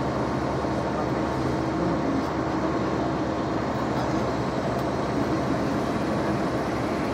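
Steady engine and road noise of a Marcopolo G6 intercity coach driving along the highway, an even drone with a faint steady hum.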